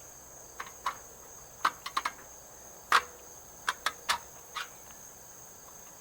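Crickets chirping in a steady high drone, with about a dozen short, sharp clicks and taps scattered through it, the loudest about three seconds in.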